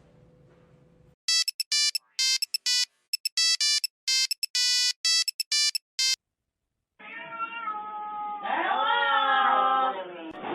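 An electronic beeping tune of short, clipped tones lasting about five seconds, then after a brief silence a cat meowing, with a long wavering meow near the end.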